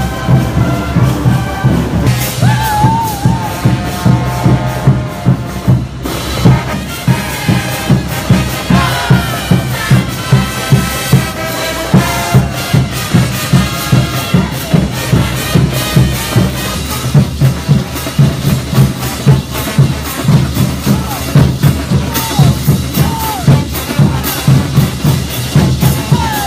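Music with a steady, heavy drum beat and a melody line over it.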